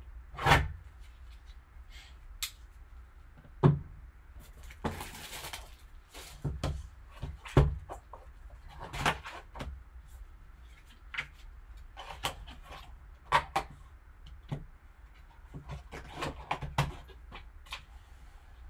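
Shrink wrap being cut and stripped off a cardboard trading-card hobby box, and the box lid opened: scattered taps, knocks and crinkles, with a longer rustle of the wrap about five seconds in.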